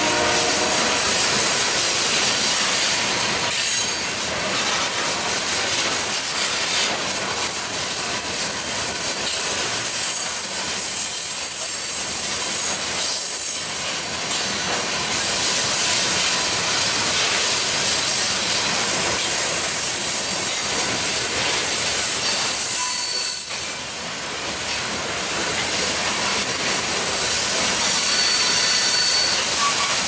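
Steady rumble and hiss of a freight train's covered hopper cars rolling past, steel wheels running on the rails, with a few brief high-pitched wheel squeals near the end.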